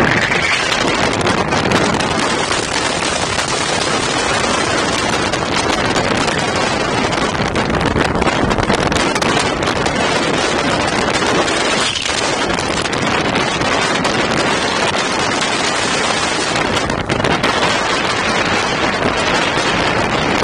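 Loud, steady rush of wind buffeting the action camera's microphone during a skydive.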